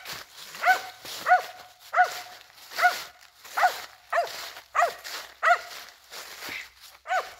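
A squirrel-hunting dog barking steadily, short sharp barks at an even rhythm of a little more than one a second.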